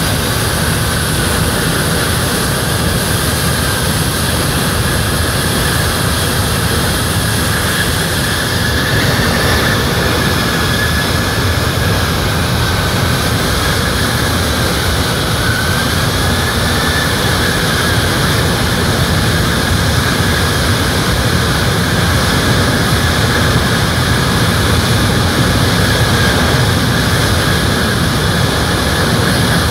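Boeing C-17 Globemaster III's four Pratt & Whitney F117 turbofan engines running steadily as the aircraft taxis slowly. The jet noise is loud and even, with a high whine that wavers slightly in pitch midway.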